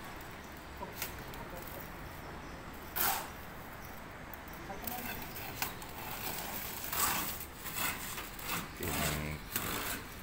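Building-site background noise: a steady hiss with a few short knocks and scrapes of tools, busier toward the end, with voices in the background.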